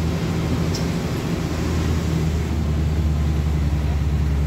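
Engine and road noise of a moving vehicle heard from inside its cab: a steady low drone with tyre and road rumble.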